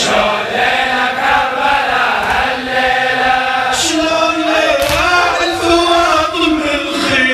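Men's voices chanting a Shia Muharram mourning elegy (latmiya) in unison, in long drawn-out melodic lines, with a few sharp strikes cutting through.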